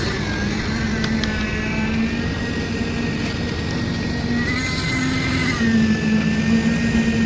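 An engine-driven machine running steadily, its pitch wavering slightly up and down, typical of the machinery used for concrete casting on a building site.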